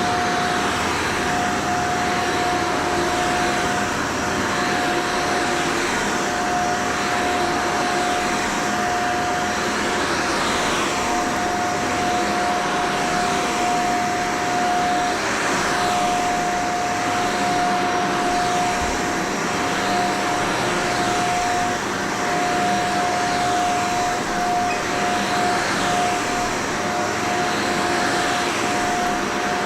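Shark Vertex upright vacuum cleaner running on carpet: a steady motor whine under a rush of air that swells and fades every few seconds.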